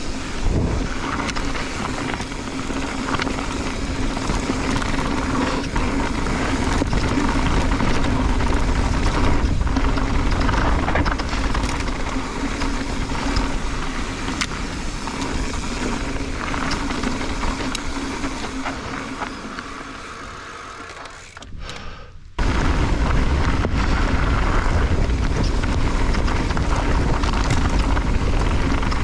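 Mountain bike descending a dirt and gravel trail: knobby tyres rolling and crunching, the bike rattling, and wind buffeting the camera microphone. The noise fades, drops out briefly about three quarters of the way through, then returns abruptly at full level.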